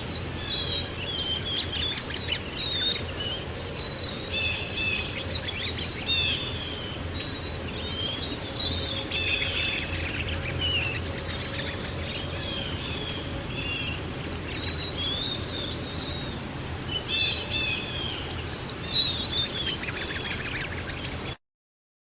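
Many small songbirds chirping and trilling in quick, overlapping calls over a steady low background rumble. All sound cuts off suddenly about a second before the end.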